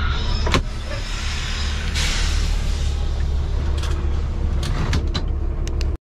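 Semi-truck's diesel engine running steadily, a deep low rumble with a hiss over it, and a few sharp clicks: one about half a second in and several near the end.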